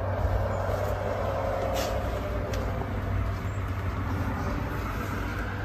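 Steady machine noise with a constant low hum, cutting in suddenly at the start.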